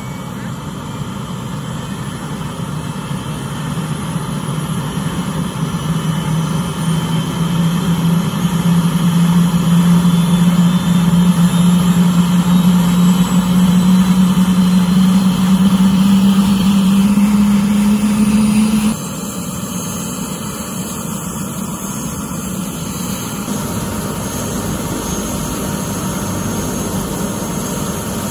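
Airbus AS350 Écureuil helicopter spinning up on the ground: the turbine and rotor run with a low tone that climbs slowly in pitch and grows louder. About two-thirds of the way through the tone cuts off suddenly, leaving a steadier, somewhat quieter rush.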